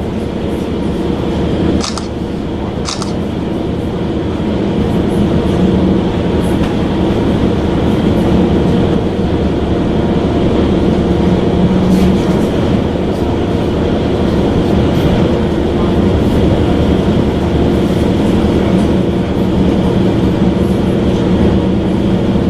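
Train running: a steady rumble with a low, even hum, growing slightly louder, and two sharp clicks about two and three seconds in.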